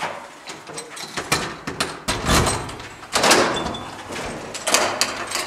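Key turning in a hotel room door lock and the door handle being worked: a series of metallic clicks and clunks, the loudest about two and three seconds in.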